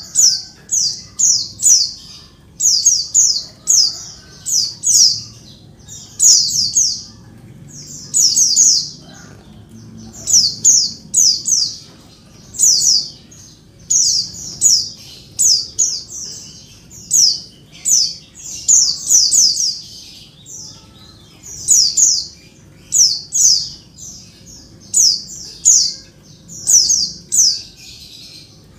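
Female pleci (white-eye) calling noisily: short, high, downward-sweeping notes in quick clusters of two to four, repeated about every second. This is the female call used as a lure to set male white-eyes calling and singing.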